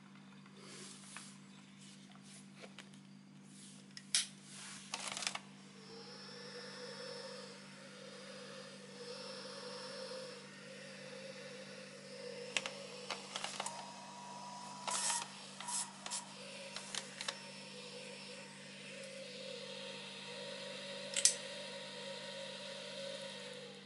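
Small 12V 3D-printer extruder cooling fan running with a steady whine that starts about six seconds in and stops near the end. Sharp clicks and knocks from the wires and fan being handled come and go over it.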